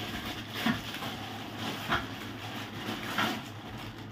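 Plastic wrapping and a cardboard box rustling in three short bursts about a second apart as a jar is lifted out of its packing; a low steady hum runs underneath.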